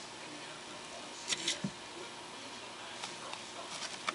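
A savannah monitor chewing a mouthful of hard-boiled egg yolk: a short run of wet jaw clicks and smacks about a second and a half in, then a few fainter clicks near the end, over a steady hiss.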